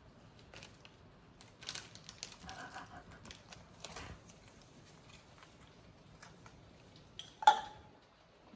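Baby macaque licking and sucking at an ice lolly: soft, irregular wet smacking clicks. About seven and a half seconds in comes a brief, sharp, high-pitched cry, the loudest sound.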